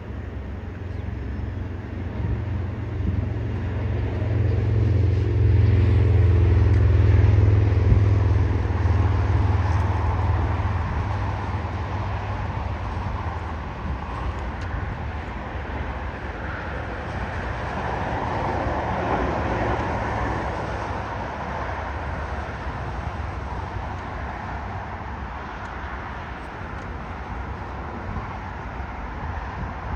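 Jet engines of a Viva Aerobus Airbus airliner at takeoff power, a deep rumble that swells to its loudest about a quarter of the way in, eases, swells again near the middle, then fades as the plane climbs away.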